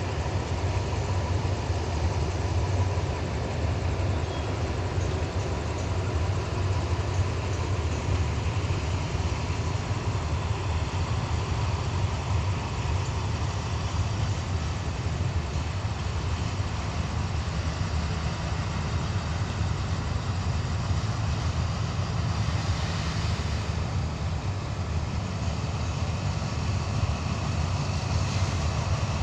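AHK-class diesel-electric locomotive running with a steady low rumble that does not rise or fall.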